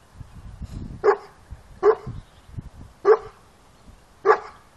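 A dog barking: four single, sharp barks about a second apart.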